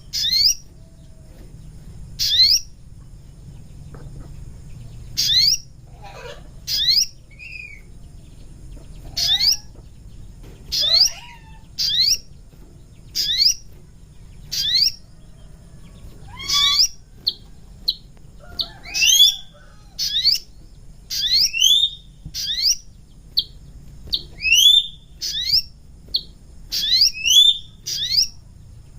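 Sogon bird calling: short, sharp, rising chirps repeated every second or two, coming closer together in the second half, as in a lure recording used to attract wild sogon. A faint low hum lies underneath.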